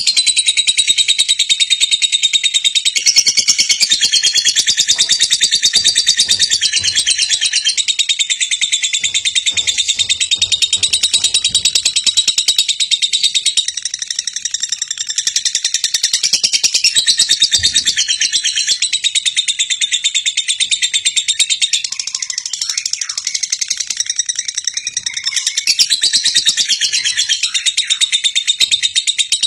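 Birds chirping: a dense, continuous run of rapid high chirps, cut off abruptly at the end.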